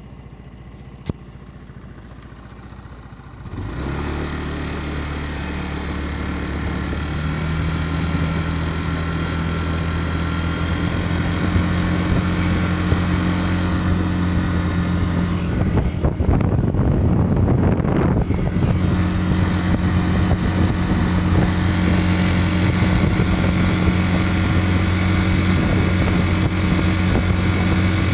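Yamaha Cygnus-X scooter engine running steadily. It comes in much louder about four seconds in and turns rougher and noisier briefly about two-thirds through. The owner's complaint is an abnormal 'da-da-da-da' ticking from the footboard area, heard after riding for a while.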